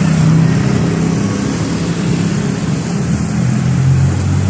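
A motor vehicle's engine running close by, a steady low drone that drops to a lower pitch about three and a half seconds in.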